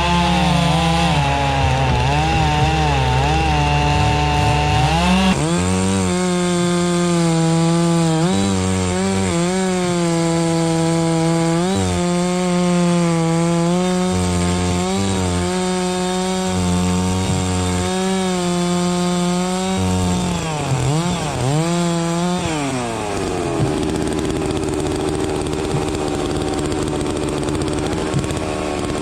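Holzfforma two-stroke gas chainsaw cutting wood under load, its engine note dipping and recovering again and again as the chain bites. Near the end it settles into a steadier note.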